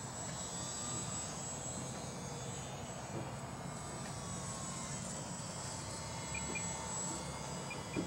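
Distant buzz of a small electric-powered model airplane, an E-flite UMX Timber's motor and propeller, in flight; its faint whine slides slowly in pitch as it passes.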